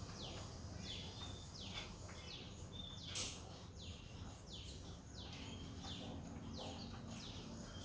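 A bird calling over and over, a short high note sliding downward each time, about twice a second, against faint background noise. A brief scratchy noise about three seconds in.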